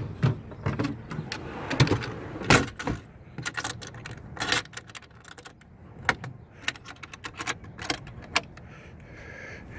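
Kitchen gear in a drawer being handled: irregular clinks, rattles and knocks of small metal items and boxes.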